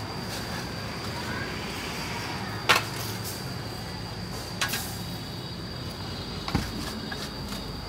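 A steel shovel blade striking and scraping into sand and rubble three times, about two seconds apart, the first the loudest. A faint steady high whine runs underneath.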